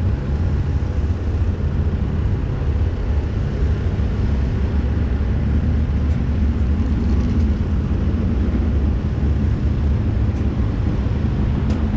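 Torqstorm-supercharged 392 Hemi V8 in a RAM pickup idling: a steady low rumble, with a few faint clicks near the end.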